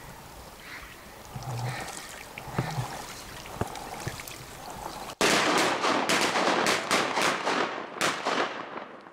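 Faint quacking in the first seconds. Then, about five seconds in, a rapid volley of shotgun fire from several hunters breaks out: around a dozen loud shots, overlapping and echoing, over about four seconds.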